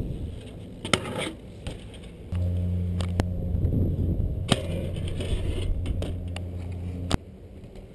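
BMX bikes rolling on concrete skate park surfaces, with several sharp knocks and clacks of the bike landing and striking ledges. A steady low hum from the tyres sets in after a couple of seconds and cuts off suddenly near the end.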